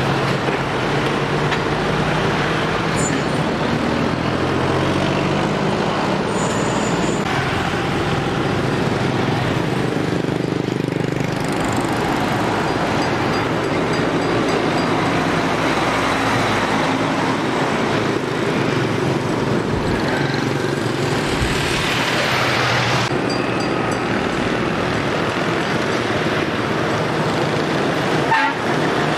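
Heavy road traffic: diesel container lorries passing close by, mixed with motorbikes, with occasional horn toots.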